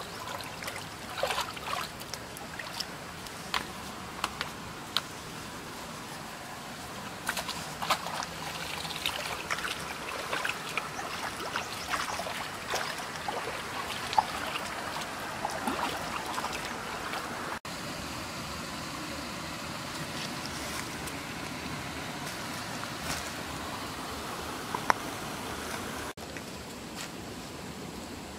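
Shallow stream water trickling, with irregular splashes and sloshes from bare feet wading through it.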